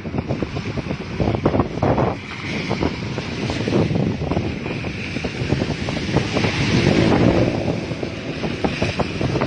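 Strong wind buffeting the microphone over the rush of sea waves surging onto a coastal road, with water hissing as it sheets across the tarmac. The rush swells loudest about two-thirds of the way through.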